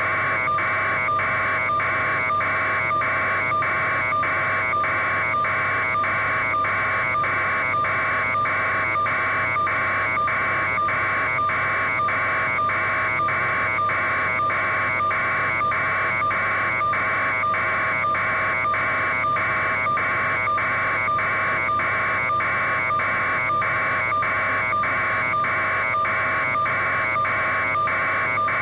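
Loud, steady electronic buzzing over a constant hum and a held tone, pulsing evenly a little under twice a second without pause.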